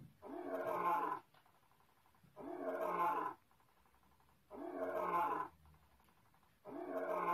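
Lion roar sound effect from the Animaterra augmented-reality card app, played for its animated lion creature: the same recorded roar repeats four times, each about a second long, about two seconds apart.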